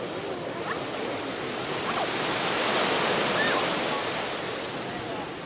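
Beach surf: waves washing onto the shore in a steady rush, one wave swelling to its loudest about halfway through and then receding.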